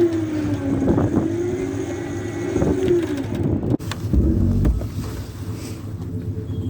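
Electric winch pulling a car frame onto a trailer, its motor whine sagging and rising with the load over a steady engine hum. The sound breaks off briefly a little before four seconds in, then a steady hum carries on.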